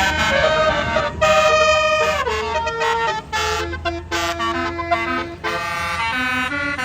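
Tour bus's basuri horn, a multi-note melodic air horn, playing a tune of held notes that step up and down in pitch, over the low rumble of the bus's engine.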